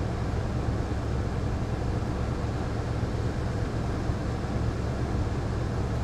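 Steady low rumble of a van's engine idling as the van creeps forward slowly in a queue.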